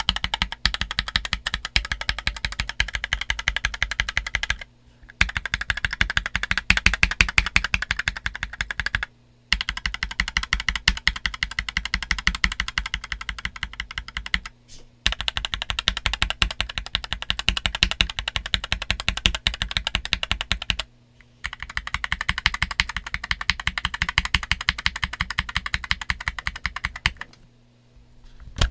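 Fast typing on an MK870 mechanical keyboard with its stock steel plate and plate-mounted stabilizers, fitted with JWK Black linear switches and DCX doubleshot ABS keycaps. It is a dense, rapid stream of keystrokes with four brief pauses, stopping about a second and a half before the end.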